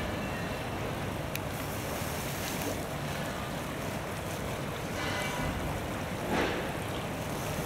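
Steady rush of a shallow stream's flowing water, with some wind on the microphone. A short pitched sound rises above it about five seconds in.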